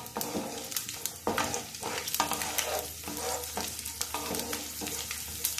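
Garlic cloves sizzling in hot oil in a nonstick frying pan, stirred with a wooden spatula that scrapes and taps against the pan in quick, irregular clicks.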